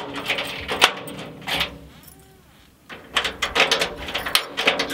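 Keys and a lock clicking and rattling at a corrugated sheet-metal door as it is unlocked, in irregular sharp clicks and metallic clatter. There is a short lull about two seconds in, then a quicker run of clicks.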